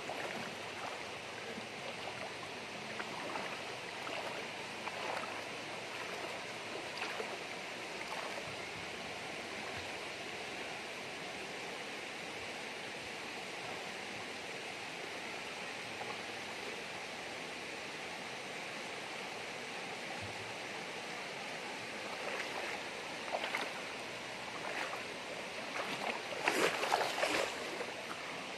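Shallow stream flowing over rocks, a steady rush of water, with a few louder splashes near the end as someone moves through the water.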